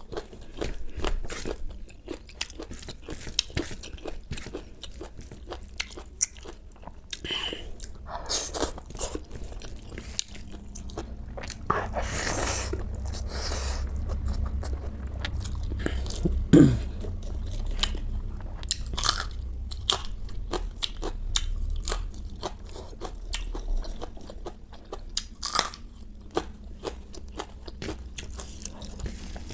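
Close-up chewing and biting of crunchy food: many irregular sharp crunches with chewing between them, and one brief falling sound about halfway through.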